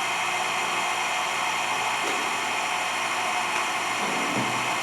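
Acer 6" x 18" surface grinder's spindle running, a steady whir from the spindle motor and spinning wheel.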